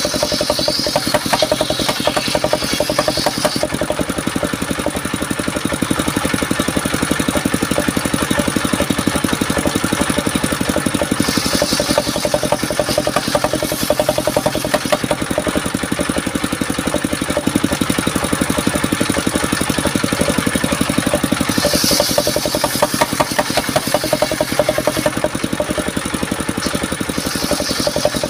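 Engine-driven mobile circular saw rig running steadily, its large blade ripping timber into beams. The blade's bite into the wood adds a higher hiss near the start, about eleven seconds in, about twenty-two seconds in, and near the end.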